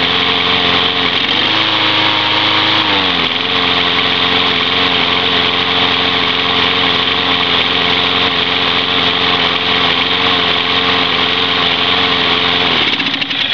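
Small Tecumseh engine on a push lawn mower running: its speed rises and falls back once in the first few seconds, then runs steady, and it cuts off near the end.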